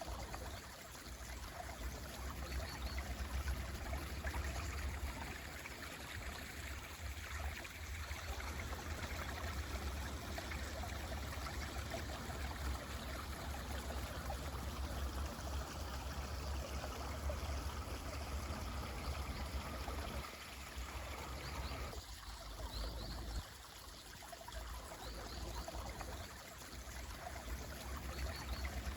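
A mountain stream running steadily, with a low rumble under the rushing water that drops away briefly twice in the second half. A few faint, short, high bird chirps come through over the water.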